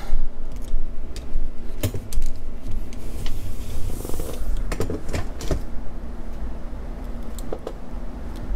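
Handling noise as a camera is picked up and repositioned: scattered knocks and clicks with a brief rustle, over a low steady hum.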